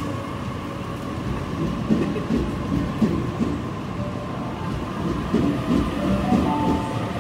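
Sydney Trains Waratah B set double-deck electric train departing, its carriages rolling past at low speed. There is an irregular low rumble and clatter from the wheels and running gear, with a steady high hum underneath.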